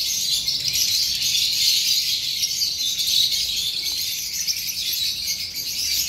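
Dense, continuous high chirping and chattering of many small cage birds, with no pauses.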